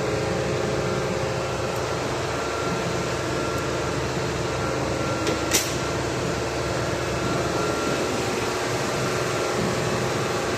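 Steady mechanical hum of running machinery, like an air-conditioning or ventilation unit, holding a few steady tones. A single sharp click about halfway through.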